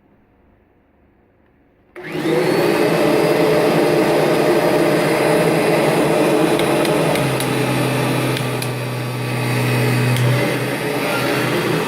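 Kirby G4 upright vacuum cleaner switched on about two seconds in, its motor coming straight up to full speed and then running loud and steady. A deeper hum joins in for about three seconds midway.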